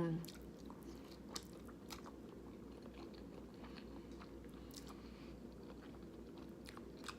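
A person chewing a mouthful of creamy pasta close to the microphone, with scattered small wet mouth clicks, over a low steady hum.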